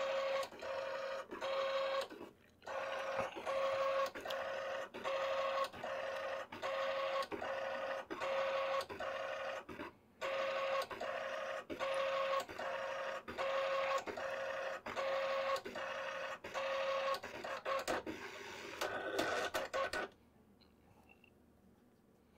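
HP ThinkJet thermal inkjet printer printing its self-test page: the print-head carriage sweeps across line after line with a steady whine, in short even passes with a brief break between each. It stops suddenly about twenty seconds in. The full printout shows the repaired print head and its connection working.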